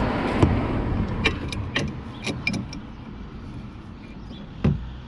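Scattered sharp metallic clicks and knocks from tools and parts being handled while a car's track rod end is fitted, over a steady background rumble of vehicle noise that eases off after about two seconds.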